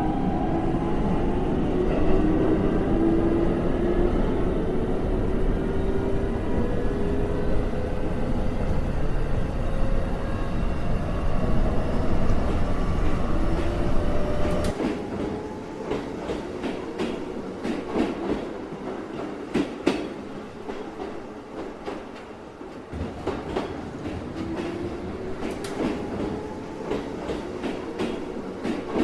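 Electric railcar running sound effect: a low rumble with a rising traction-motor whine for the first half, then about halfway the rumble drops away and the wheels clack over rail joints, with the whine rising again near the end.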